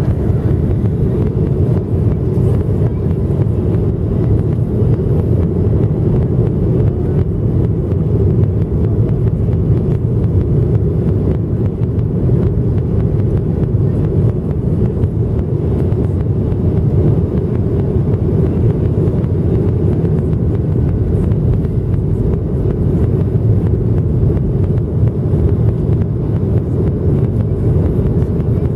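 Steady low rumble and rush of engine and airflow noise inside the cabin of a Boeing 737-700 in flight, its CFM56-7B turbofans running evenly with no change in pitch.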